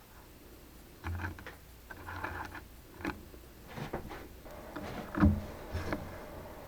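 Metal parts knocking and clinking as they are handled and set in place, in irregular clicks and knocks. The loudest knock comes a little after five seconds in.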